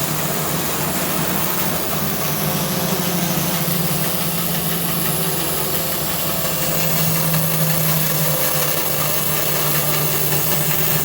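Tannewitz 24-inch bandsaw running steadily under its 2-horsepower direct-drive motor: a constant low hum over an even hiss.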